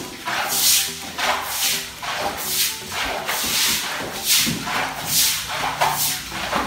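Swishing scrubbing strokes over a wet, water-covered concrete floor, a hissing swish about every second.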